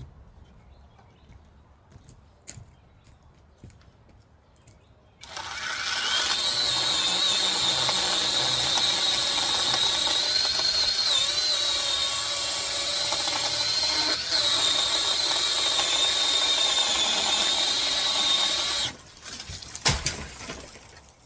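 Power saw cutting through a tree branch: it starts suddenly about five seconds in, runs steadily with a high whine for about thirteen seconds, then stops suddenly. A few knocks follow near the end as the cut branch comes down.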